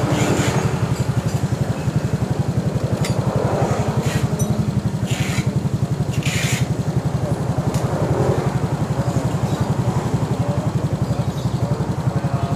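Honda Vario scooter's single-cylinder engine idling through a newly fitted aftermarket racing-style exhaust, a steady, even pulsing beat. A few brief sharp noises sound over it around three, five and six seconds in.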